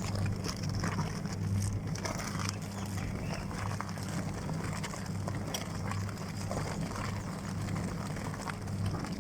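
Super Asia top-load washing machine running its wash motor near the end of a timed cycle: a steady low hum that swells and fades slightly, with scattered light clicks.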